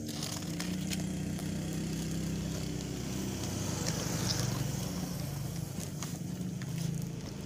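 A motor engine running steadily in the background, its low hum wavering slightly in pitch, with a few light clicks.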